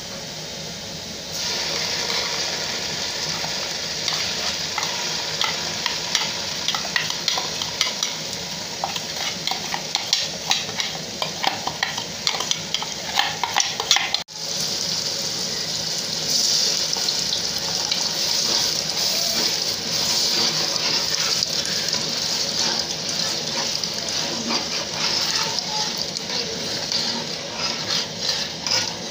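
Chopped onions and tomato paste sizzling in hot oil in a pot, with a metal spoon clicking and scraping against the pot as it is stirred. The sizzle starts about a second in, breaks off for a moment about halfway, then comes back louder.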